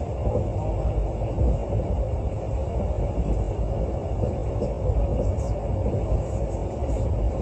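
Steady rumble of a Mugunghwa-ho passenger train running along the track, heard from inside the carriage.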